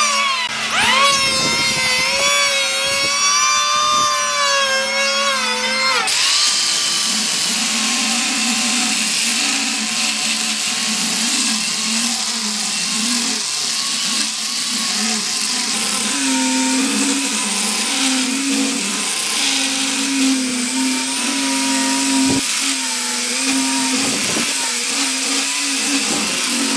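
Electric hand planer shaving a wooden beam, its motor whine wavering as the load changes; about six seconds in it cuts off and an angle grinder with a sanding disc takes over, running steadily as it sands the wood, its pitch shifting now and then with the pressure.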